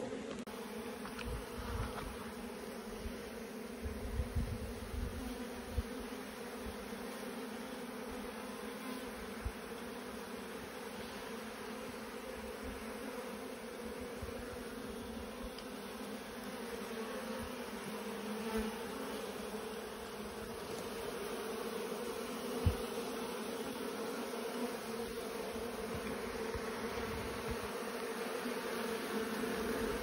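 A mass of honeybees buzzing in a steady hum around their comb, growing a little louder toward the end. A few dull thumps in the first several seconds and one sharp knock about three quarters through.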